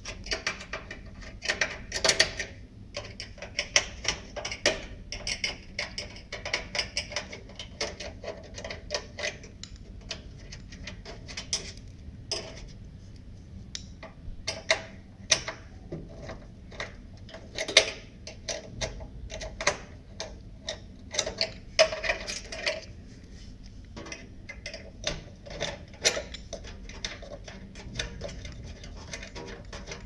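Small screwdriver backing the power supply's mounting screws out of a metal PC case: many irregular metallic clicks and scrapes as the tip turns in the screw heads.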